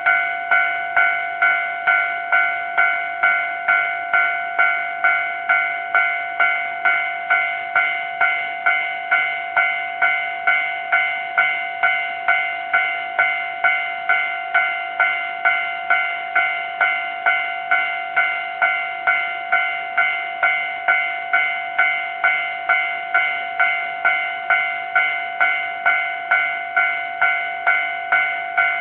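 Japanese railway level crossing warning bell ringing steadily, a repeating ding-ding at about two strikes a second, sounding while the crossing is closed for an approaching train.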